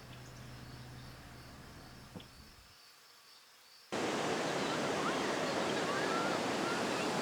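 Faint low hum and quiet ambience, then about four seconds in a sudden cut to loud, steady rushing river water.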